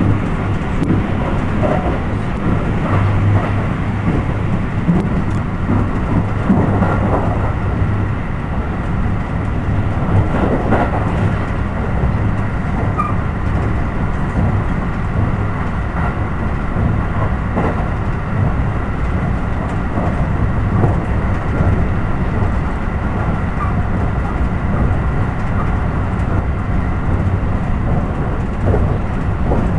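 Steady low rumble of an electric train running at speed, heard from inside the carriage: wheels on rails with a few brief knocks here and there.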